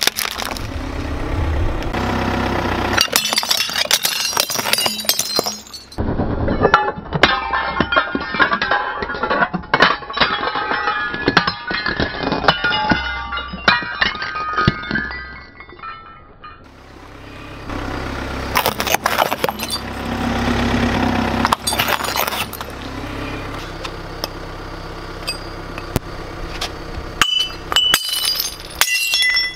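A car tyre rolling over a plastic toy, cracking it, then over white porcelain cups, which crack and shatter with shards clinking and scattering. Near the end a hatchet strikes the broken cups, smashing them in sharp clinking cracks.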